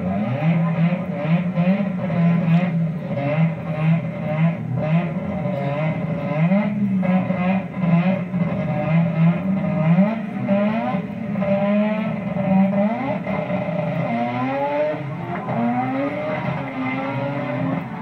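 Drag race car's engine running hard at the strip, its pitch rising again and again as it revs and accelerates away down the track.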